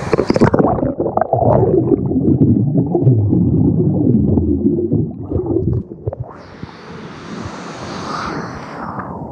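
Loud, muffled rumbling and gurgling of churning water in a waterfall's pool, heard with the microphone under water. About six seconds in it gives way to a quieter, thinner rushing hiss.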